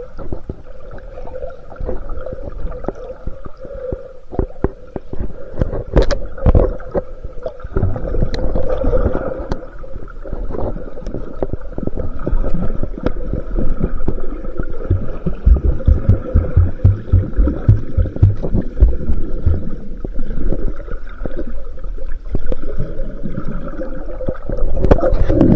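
Muffled underwater sound heard through a waterproof camera housing: water rumbling and knocking against the housing, with a run of low knocks in the middle and a few sharp clicks, over a steady hum.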